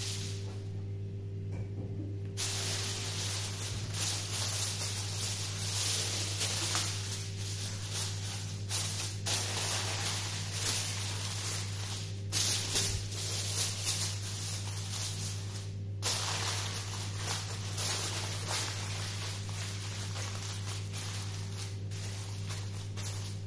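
Aluminium foil crinkling and rustling as it is pressed and crimped down around the edges of a baking dish. It comes in irregular crackles after a short lull at the start, over a steady low hum.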